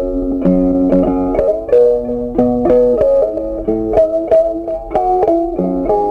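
Background music: a plucked guitar melody, with notes changing several times a second.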